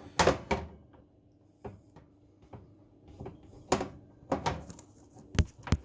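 An oven door being slotted back onto its hinges: a series of sharp knocks and clunks as the hinge arms are worked into the door's slots, the loudest right at the start and the rest scattered through.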